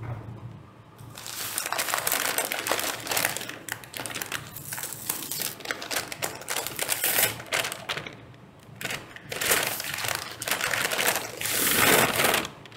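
A white paper bag rustling and crinkling as it is handled, opened and its contents pulled out, in two stretches with a short pause between them.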